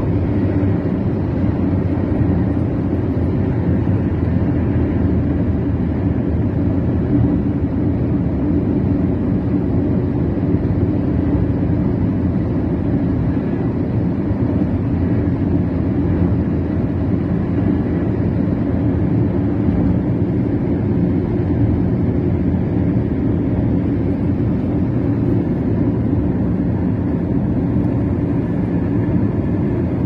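Steady engine and road noise from a vehicle cruising along a highway, heard from inside the vehicle as an even low rumble.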